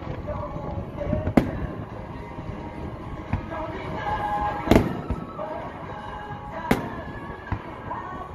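Aerial firework shells bursting overhead: a sharp bang about a second and a half in, the loudest, doubled bang near five seconds in, another bang near seven seconds, and smaller pops between them.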